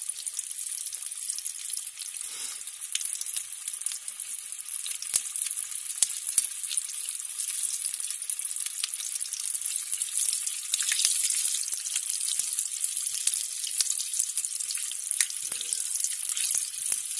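Battered green tomato slices deep-frying in hot oil: a steady high sizzle with frequent small crackles as the oil bubbles around them.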